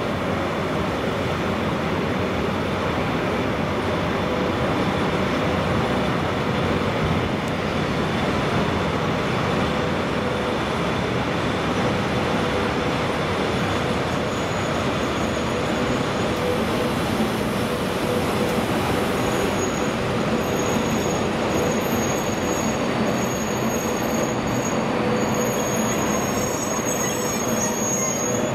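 ET22 electric locomotive hauling a long freight train of open wagons past at close range: a steady rumble of wheels on rail, with a faint humming tone. About two-thirds of the way in, thin high wheel squeal joins in.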